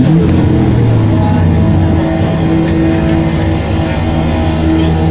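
BMW E36's engine running loudly through its exhaust, easing down from a short rev in the first second and then idling with a steady low note.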